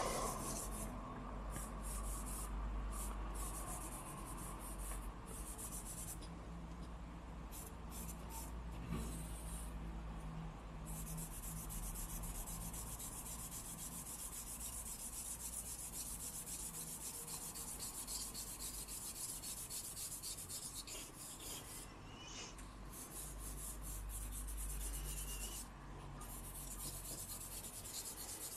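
Charcoal stick scratching across drawing paper in repeated shading strokes, laying in a dark tone. The strokes come in spells with short breaks, and the longest unbroken spell is in the middle.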